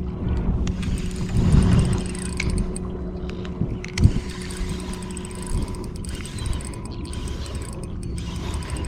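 A boat motor running steadily as the boat follows a hooked fish, the hum easing off after about five seconds. A single sharp knock about four seconds in.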